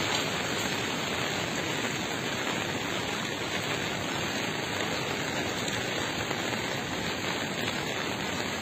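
Steady rain, an even hiss with no distinct drops or knocks standing out.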